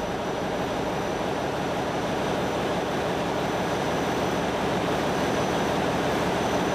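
Steady machinery din of a ship's engine room: a continuous mechanical rumble and hiss with a faint high-pitched whine above it.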